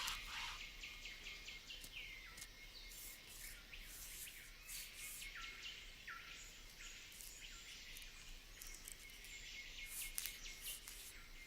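Faint forest ambience: a bird repeatedly gives short calls that slide downward in pitch, at irregular intervals, over a soft hiss with scattered faint ticks.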